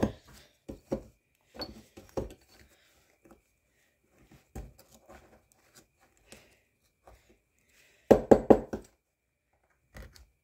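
Small digging tool scraping and tapping at a plaster dig-kit block to free a rock, in scattered short scratches and knocks, with a quick run of louder knocks about eight seconds in.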